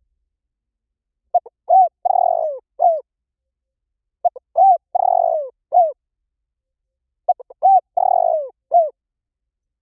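Spotted dove cooing: three repeated phrases about three seconds apart, each a few short clipped notes followed by a longer drawn-out coo and a final falling note.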